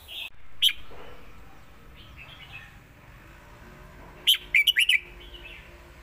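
Red-whiskered bulbul giving a couple of short chirps at the start, then a quick run of about five loud, sharp notes a little past four seconds in.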